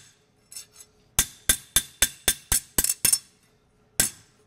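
Ball peen hammer striking a 1/8 by 3/4 inch mild steel flat bar on an anvil, each blow ringing. A few light taps come first, then a quick run of about eight blows at roughly four a second, a short pause, and two more blows near the end.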